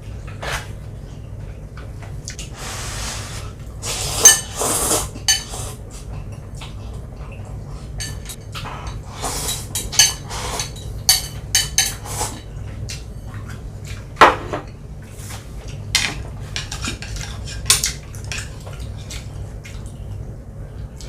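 Instant noodles being eaten from a bowl: utensils clink and scrape against the dish many times, some clinks ringing briefly, with a few noisy stretches of slurping.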